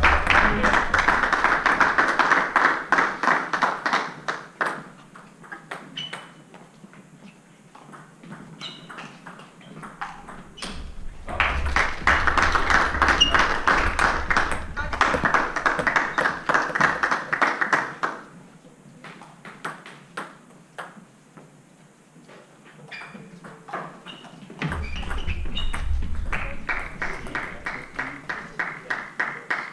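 Table tennis ball clicking off bats and table in rallies and bounces. There are three louder stretches of noise from the spectators, each a few seconds long, near the start, in the middle and near the end.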